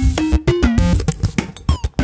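Background music: a quick melody of short pitched notes, changing several times a second, over a drum beat.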